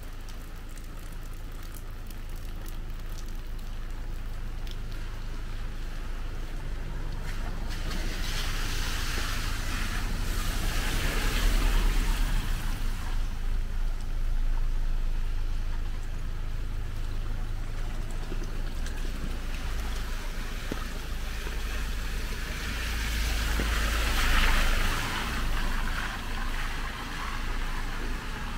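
Heavy rain on a street with two vehicles passing on the wet road, their tyres hissing through the water as each swells past and fades, over a steady low rumble.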